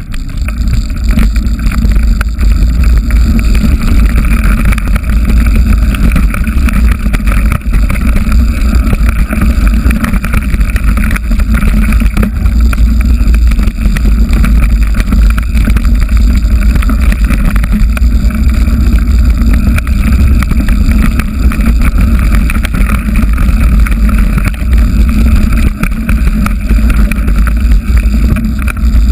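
Wind buffeting a GoPro action camera's microphone on a mountain bike ridden fast down a dirt singletrack: a loud, steady low rumble, with the rattle and clatter of the bike over the rough trail throughout.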